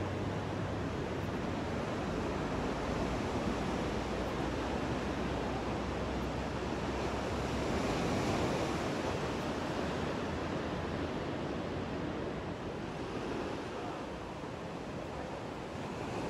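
Ocean surf: a steady wash of breaking waves, swelling to its loudest about eight seconds in and easing a little near the end.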